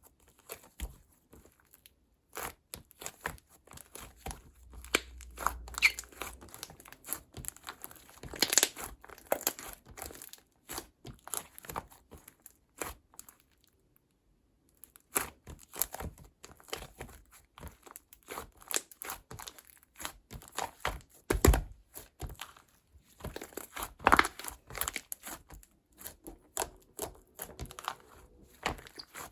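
Blue slime being squeezed and stretched by hand, giving runs of sticky crackles and small pops, with a few louder snaps and a short pause about halfway.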